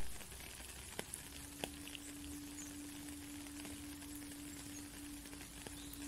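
Steady rain falling on a puddle and wet ground, with a few sharper drop splashes. A sharp click at the very start, and from about a second in a low flute note held steadily under the rain.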